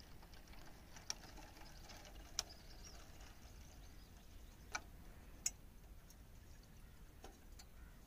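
A few sharp, spaced-out clicks over a quiet background: a stainless steel pot tapping against the mouth of a cut plastic bottle as water is poured into it.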